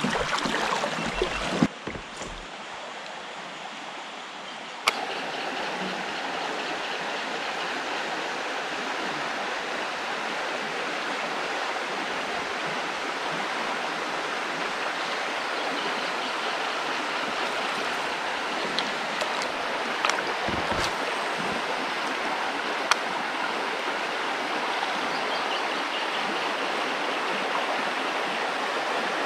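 Fast river water rushing over rapids, a steady noise. A click comes about five seconds in, after which the rushing is louder, and there are a few small knocks later.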